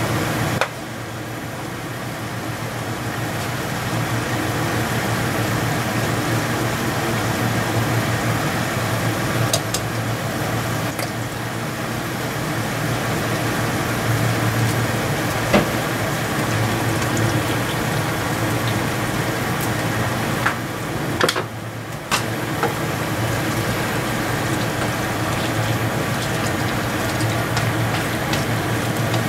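Thin-sliced meat sizzling and simmering in its juices in a nonstick frying pan, over a steady low hum, with a few light clicks.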